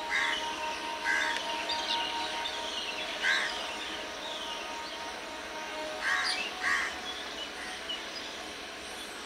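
Crows cawing: five harsh caws, one near the start, one about a second in, one around three seconds and two close together around six seconds. Faint falling chirps of smaller birds sit behind them over a steady outdoor background noise.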